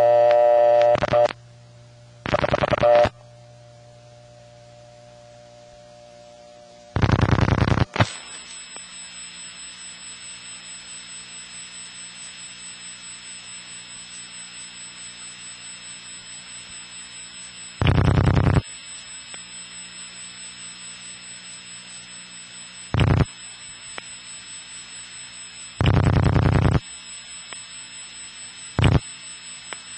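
A telephone line heard during dialing through a step-by-step exchange. A buzzy dial tone stops about a second in, and then seven bursts of rotary dial-pulse clicking follow, one for each digit. Right after the third digit, the hiss and hum of an N3 analog carrier trunk (a 2600 Hz controlled carrier) comes on and stays under the remaining digits: the connection to the distant rural office is already made.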